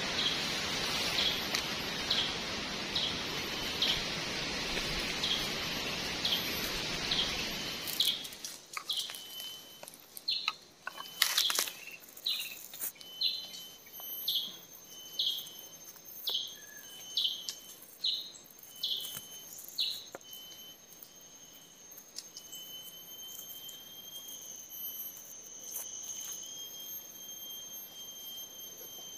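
A bird repeating a short high chirp about one and a half times a second, which stops about twenty seconds in. For the first eight seconds it is heard over a steady rushing noise that cuts off suddenly. A thin, steady high whine runs through the last part.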